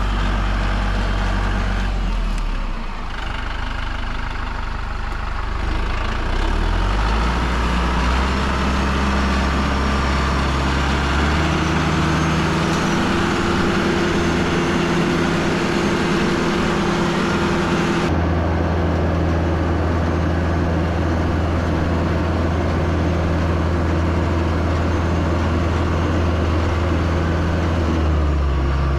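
Engine of a vehicle or machine running steadily while being driven, its pitch stepping up and down several times as the engine speed changes.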